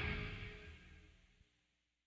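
Music fading out, dying away to near silence about a second in.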